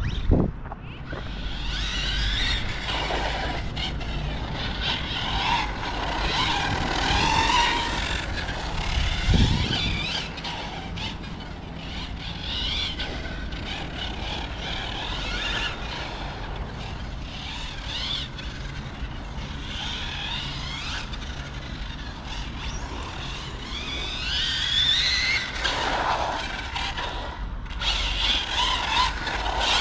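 Brushless electric motor of a 1/10 Hobao Hyper 10SC short-course RC truck whining up and down in pitch as it accelerates and brakes, with tyres scrubbing on asphalt. A dull thump comes about nine seconds in.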